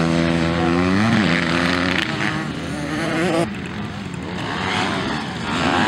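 Small youth motocross bike engines revving hard close by, the pitch climbing and dropping with throttle and gear changes. About three and a half seconds in the sound drops to a more distant engine, and near the end another bike revs up loudly.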